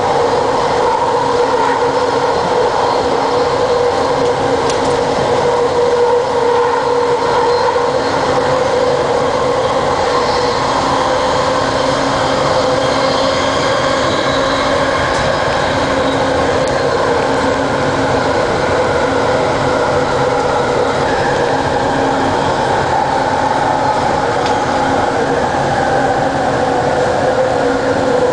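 Bombardier ART Mk II linear-induction-motor train running along its guideway, heard from inside the front car: a steady rolling rumble with a steady hum running under it throughout.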